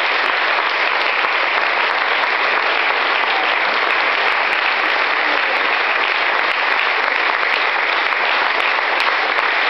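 Sustained applause from a theatre audience, with the cast on stage clapping along, at an even, steady level.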